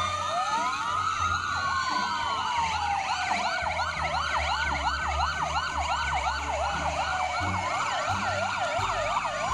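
Several fire-engine sirens sounding together. Slow wails rise and fall, and about two seconds in they are overlapped by a fast yelp of roughly three sweeps a second, with a low rumble underneath.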